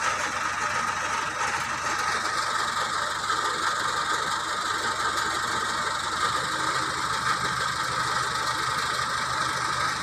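JCB backhoe loader's diesel engine running steadily as the front bucket is raised with a load of palm fruit bunches; the engine note deepens about six seconds in.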